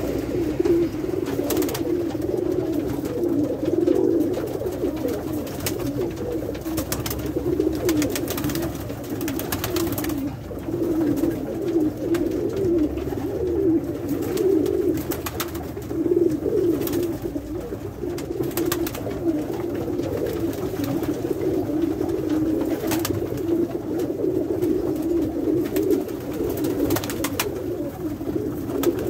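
A flock of Pakistani high flyer pigeons cooing together in a small wooden loft: a continuous, overlapping low cooing chorus. It is broken now and then by short sharp wing flaps as birds take off and land on the perches.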